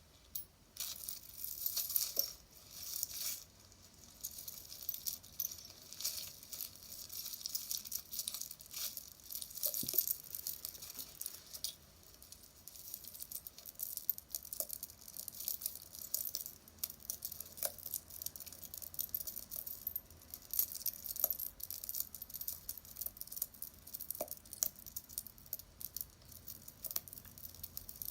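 Hands rummaging through a bag of jewelry: irregular crinkling and rustling with scattered light clinks of metal and beads.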